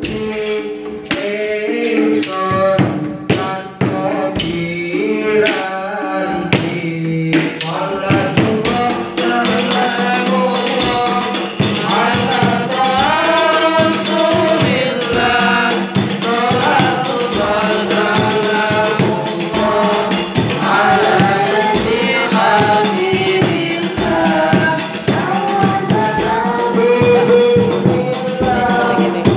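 Sholawat, Islamic devotional song, sung through microphones by singers taking turns, male and female. For about the first eight seconds steady hand-percussion beats keep time under the voices; after that the singing carries on over a steady accompaniment.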